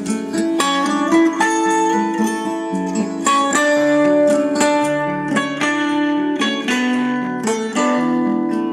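Guitar-led music with plucked notes over sustained chords, played back through the TG-166 mini portable Bluetooth speaker. It has almost no bass below about 100 Hz.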